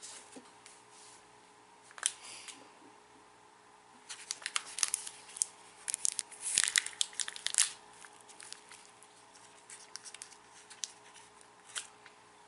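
A small crinkly plastic snack pouch of fried edamame being torn open by hand. There is a brief crackle about 2 seconds in, dense crinkling and tearing from about 4 to 8 seconds in, and a few scattered crackles afterwards.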